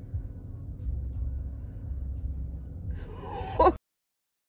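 Low, steady rumble of a vehicle heard from inside the cab. About three seconds in comes a short, loud cry whose pitch rises sharply, and it cuts off abruptly into dead silence.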